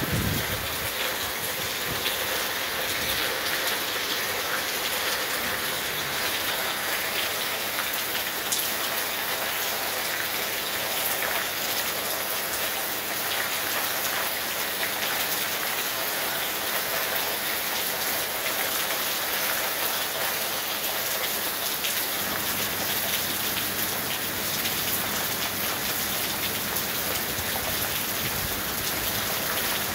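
Heavy rain pouring down steadily onto a street, an even hiss of drops with scattered sharper drop hits.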